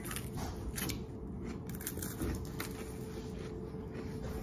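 Honey graham crackers being bitten and chewed close to the microphone: a few short crisp crunches scattered among quieter chewing.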